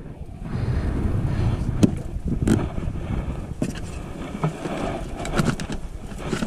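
Handling noise aboard a plastic sit-on-top kayak: several sharp knocks of the paddle and gear against the hull, over a steady low rumble.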